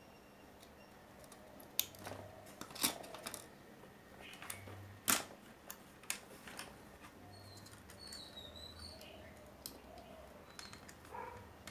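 Scattered sharp clicks and taps of small tools and parts being handled, loudest about three and five seconds in, with faint bird chirps in the background.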